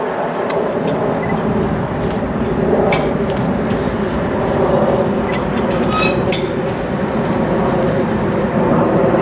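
Convoy of diesel locomotives led by a Class 56 moving slowly, their diesel engines running with a steady drone. A couple of sharp metallic clinks from the train about three and six seconds in.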